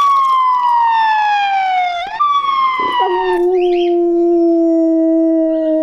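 Siberian husky howling: two long howls that slide down in pitch, then a lower, steady howl held from about three seconds in.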